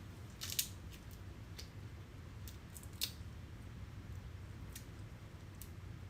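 A few short, sharp clicks and taps, the loudest about half a second in and another about three seconds in, over a steady low hum.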